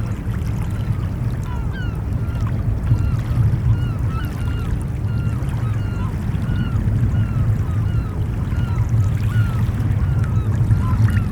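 Ocean surf as a steady low rumble, with many short bird calls chirping over it throughout.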